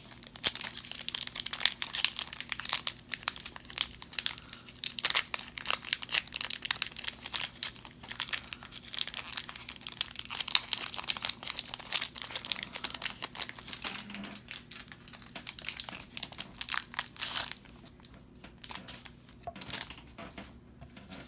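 Plastic wrapper of a SkyBox basketball card pack crinkling and tearing open, a dense crackle for most of the stretch that thins out to a few scattered crinkles near the end.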